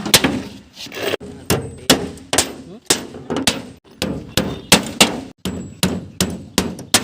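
Hammer blows repeated steadily, about two to three strikes a second.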